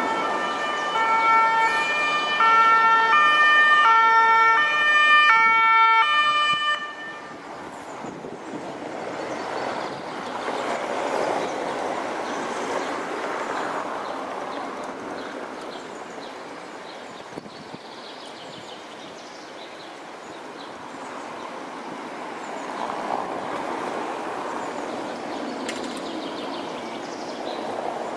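Two-tone emergency-vehicle siren, alternating between a high and a low pitch for about six seconds and then cutting off. After it comes a quieter, steady rushing noise.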